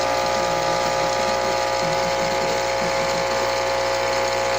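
Nespresso CitiZ espresso machine's vibratory pump buzzing steadily after the brew button is pressed, while no coffee comes out of the spout.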